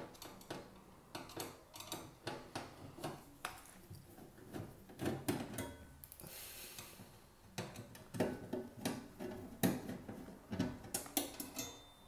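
Screwdriver turning out the screws of a sheet-metal access hatch on a tumble dryer's casing: an irregular run of light metallic clicks, ticks and small knocks.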